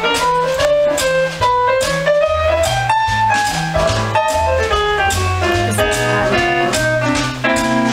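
Small jazz combo playing: an upright bass walking underneath, a drum kit keeping time on the cymbals, and a melodic lead line on top that slides upward about a second in.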